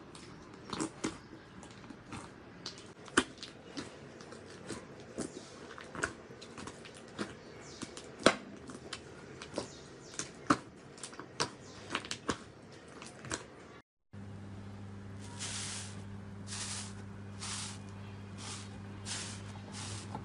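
Hands kneading and folding a thick fluffy slime, giving many sharp pops and clicks as air pockets burst. About 14 s in, it cuts to a different, foamy slime pressed in a slow rhythm of soft squishes, about one a second, over a low steady hum.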